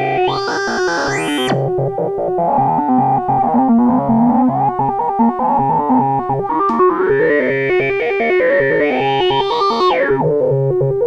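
Make Noise MATHS function generator running as a hard-synced oscillator in a Eurorack modular synthesizer, playing a sequenced line of stepping notes over a repeating low note. Bright sweeps rise and fall in its tone about a second in and again near the end as the knobs are turned.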